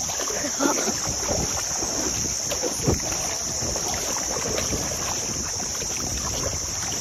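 Strong wind rushing over the microphone, with a steady high hiss behind it.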